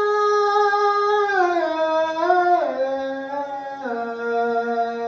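A man chanting an Arabic religious invocation into a microphone, drawing out a single syllable in a long melismatic line. He holds one note, steps down twice to lower held notes, and starts to rise again near the end.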